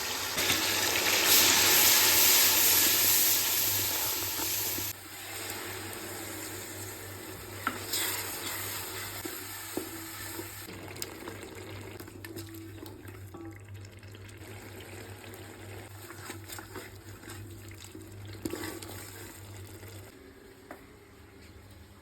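Water running or pouring for about five seconds and stopping abruptly, followed by a fainter hiss with scattered clicks that slowly fades.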